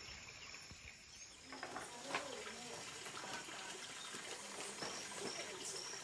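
Faint rainforest ambience: a short, high chirp repeating about twice a second from about halfway in, over soft hiss and faint low calls.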